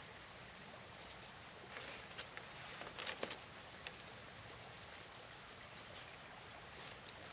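Thin split-bamboo strips being handled and laid across one another: a short cluster of light clicks and rattles about two to three seconds in, over a faint steady hiss.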